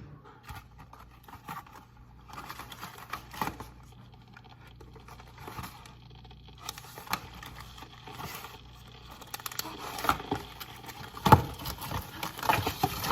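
Kitchen items being handled: scattered clicks, knocks and scraping, with one sharp knock about eleven seconds in and a cluster of knocks near the end.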